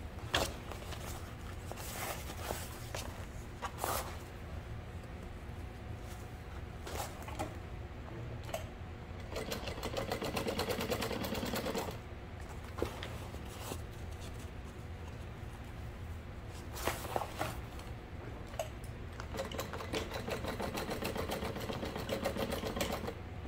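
Sewing machine stitching seams through fabric in runs, a rapid even needle rhythm over a steady motor hum, with two longer runs in the middle and near the end. Between them the fabric rustles as it is turned and repositioned under the foot.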